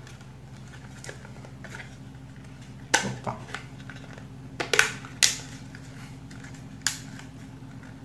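Hard plastic shell of a USB hard-drive enclosure being handled and pressed to snap it shut: several sharp plastic clicks and knocks, spaced irregularly, over a steady low hum.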